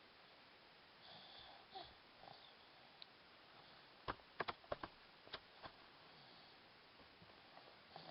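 Faint breaths and sniffs of someone sleeping, with a quick run of six or seven small sharp clicks in the middle.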